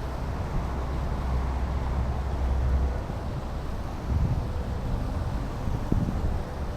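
Wind buffeting the microphone: a low, uneven rumble that surges in gusts over a steady background hiss.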